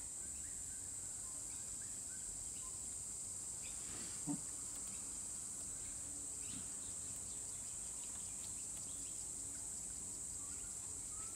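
Steady, high-pitched drone of an insect chorus in the garden, with one short soft tap about four seconds in.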